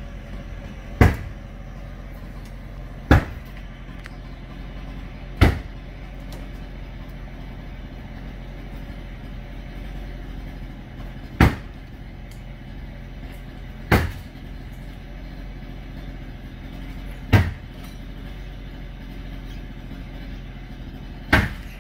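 Heavy machine engine running steadily during a garage demolition, with seven sharp bangs of impacts on the structure spaced a few seconds apart.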